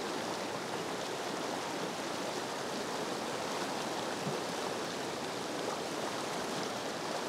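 Steady rush of fast river water tumbling over rocks in a shallow whitewater run.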